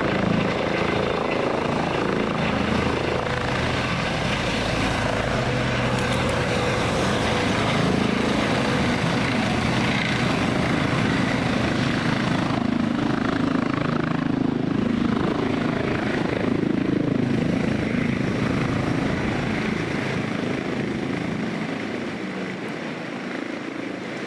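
Police helicopter's rotor and turbine engine running steadily in flight, growing fainter over the last few seconds.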